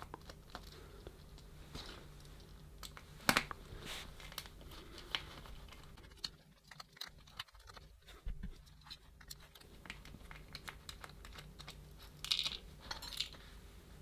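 Small screwdriver backing out the tiny screws from a Eufy RoboVac 11s plastic drive-wheel hub: sparse light clicks and taps of screwdriver, screws and plastic parts, with a sharper tap about three seconds in and a few more near the end.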